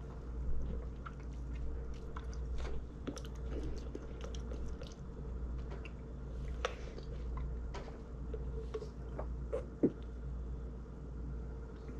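A person sipping soda through a straw: short sucking slurps, swallows and small wet mouth clicks, scattered and uneven, over a steady low hum.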